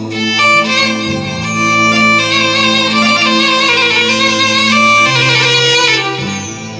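Instrumental interlude between sung lines of an Iraqi mawwal: a reedy, sustained wind-like melody over steadily held bass notes that change pitch a few times.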